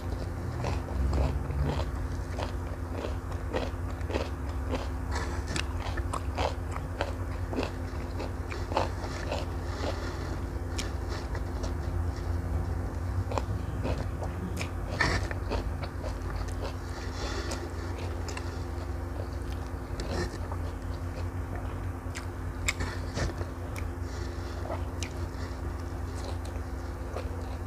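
Close-miked chewing and wet mouth sounds of a person eating fried instant noodles and rice, with irregular smacking clicks, over a steady low hum.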